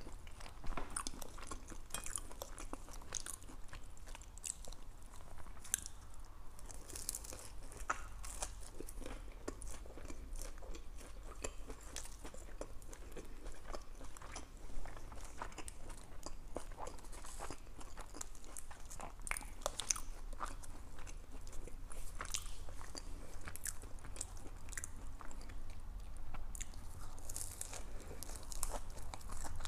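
Close-miked chewing and crunching of a fried egg roll, with a steady run of crisp little crackles and mouth clicks.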